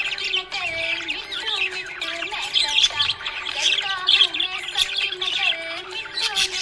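Budgerigars chirping and warbling continuously, many rapid overlapping chirps at once.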